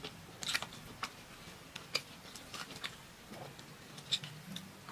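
Soft crisp crackles and clicks, scattered a few a second, from a fried pastry snack being pulled apart by hand and eaten, with sharper crackles about half a second, two seconds and four seconds in.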